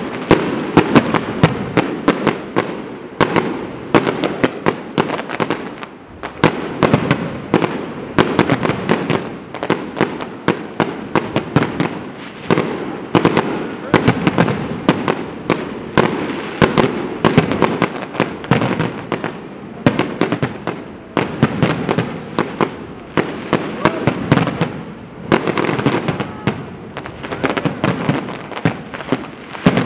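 Fireworks display: aerial shells bursting in quick, unbroken succession, several sharp bangs a second.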